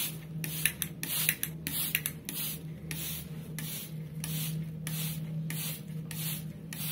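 Trigger spray bottle squirting water in quick repeated pumps, about two a second, each a short hiss of mist, over a steady low hum.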